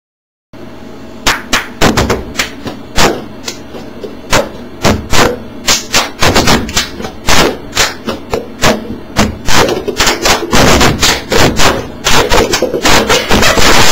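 Paper cups knocked and slapped on a tabletop, mixed with hand claps in the cup-game rhythm: a string of sharp knocks about two a second. Several people play at once and the strokes fall unevenly. The knocks start about half a second in and grow busier near the end.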